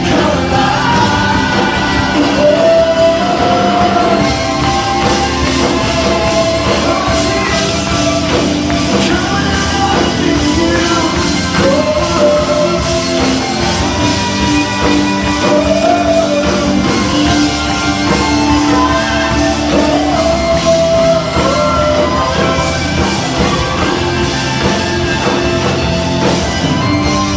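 Live worship band playing a rock-style song, loud and continuous with a full band sound.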